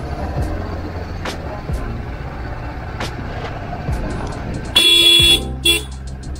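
Motorcycle engine running steadily at low riding speed. Near the end the horn honks twice: a half-second blast, then a short toot.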